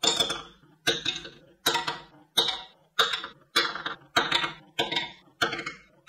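Marbles dropping one after another off a wooden track into a wooden bowl, about nine in turn, one every two-thirds of a second. Each lands with a sharp clack against the bowl and the marbles already in it, then rattles briefly as it settles.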